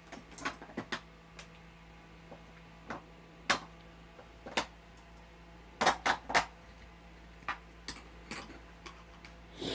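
Irregular sharp clicks and taps, loudest in a cluster about six seconds in, over a faint steady electrical hum.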